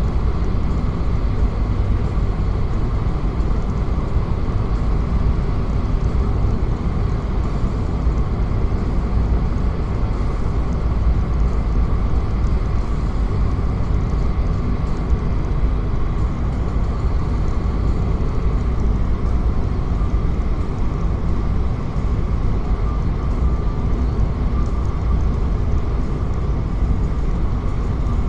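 Steady road and engine noise of a moving vehicle, a constant low rumble with no breaks or sudden events.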